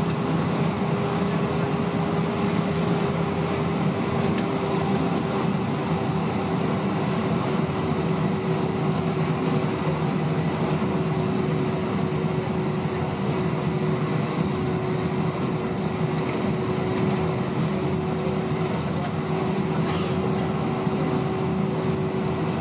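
Airbus A320-232's IAE V2500 turbofan engines heard inside the passenger cabin: a steady, loud drone with a constant hum running through it.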